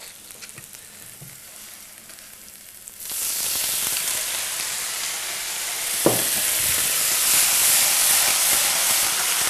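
White wine poured into a hot frying pan of sautéed onions and garlic: faint sizzling, then about three seconds in a sudden loud hissing sizzle as the wine hits the hot pan and boils off in steam. One knock about six seconds in.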